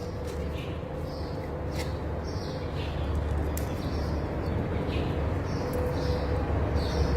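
Birds chirping in short, irregular calls over a steady low mechanical hum that grows slightly louder near the end.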